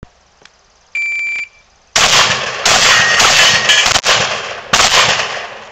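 An electronic shot timer gives one short, steady, high start beep about a second in. About half a second later a shotgun starts firing, about five or six loud blasts over roughly three seconds, each ringing out across the range.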